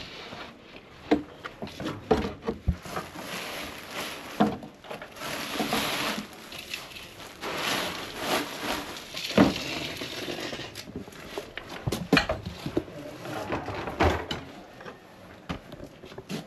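Hard household objects being shifted and knocked about, with rustling: irregular clatter and sharp knocks throughout, as things are moved aside.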